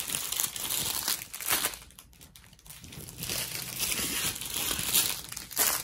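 Clear plastic bags of diamond-painting drills crinkling as they are handled and laid down. The crinkling comes in two spells with a short lull between them.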